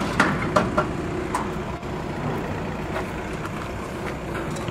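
Steady low rumble of an idling vehicle engine, with a few light clicks in the first second.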